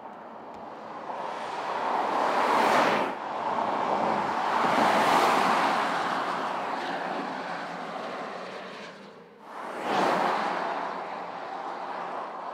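Porsche Cayenne driving past, its engine and tyre noise swelling and fading three times, with sudden cuts between the pass-bys about three seconds in and again near ten seconds.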